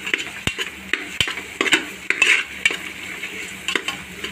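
Metal slotted spoon stirring frying onion-tomato masala in a pressure cooker: repeated scrapes against the pot, with a few sharp knocks about half a second and a second in, over the frying sizzle.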